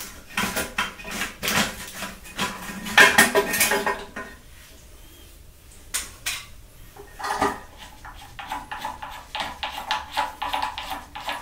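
A wrench clicking and clinking against the nuts on the underside of a toilet cistern as they are unscrewed, in quick runs of short knocks with a quieter pause of a couple of seconds in the middle.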